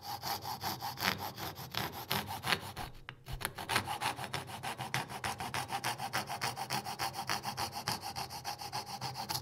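Coping saw cutting a curve from inside a drilled hole in a thin wooden board clamped in a vise: quick, even back-and-forth strokes of the fine blade through the wood, with a brief pause about three seconds in.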